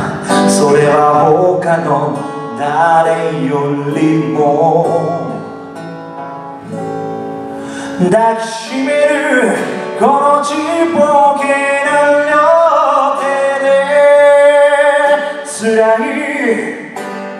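A man singing into a microphone while playing an acoustic guitar. The song eases off about six seconds in, then the voice comes back stronger and holds long notes.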